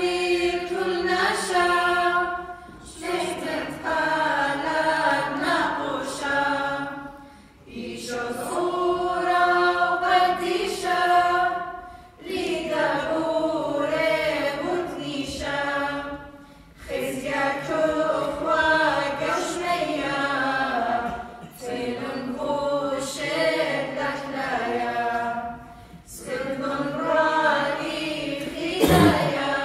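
Small mixed choir singing a hymn of the Assyrian Church of the East unaccompanied, in sung phrases of about four seconds with short breath pauses between them.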